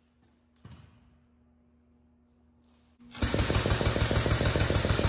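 Air-over-hydraulic bottle jack pumping, a loud fast rattle of about nine strokes a second that starts suddenly about three seconds in, putting pressure under a dumpster tailgate to lift it. Before it, a single knock about half a second in over a faint steady hum.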